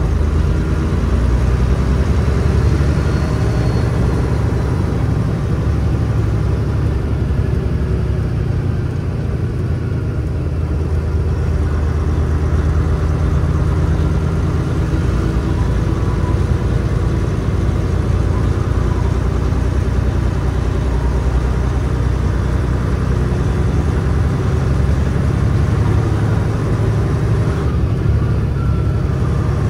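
Heavy truck's engine and road noise: a steady, loud low rumble with no change in pitch.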